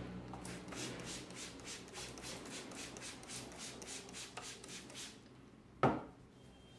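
Hands briskly rubbing a person's scalp and hair during a head massage, about three to four strokes a second, stopping about five seconds in. One sharp slap follows, the loudest sound.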